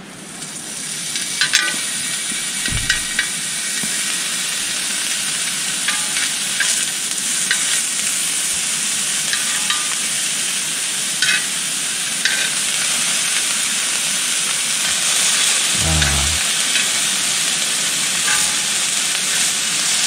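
Beef rib meat sizzling as it grills, a steady frying hiss with scattered pops and crackles of fat. A dull thump comes about three seconds in.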